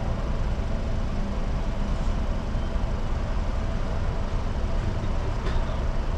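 Car engine idling with a steady low rumble, heard from inside the cabin.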